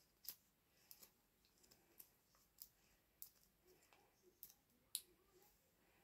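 Stiff homemade slime, still like Blu Tack, being kneaded and stretched between the fingers: faint, scattered sticky clicks and pops, about eight in six seconds.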